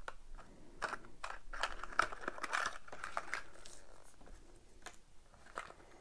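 Small plastic parts clicking and tapping as they are picked up and set down on a hard tabletop, with some rustling of packaging around the middle.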